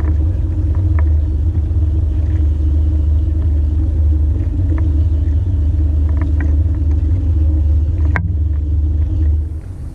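Fishing boat's motor running steadily at trolling speed, a loud low rumble, with a sharp click about eight seconds in. The rumble drops in level near the end.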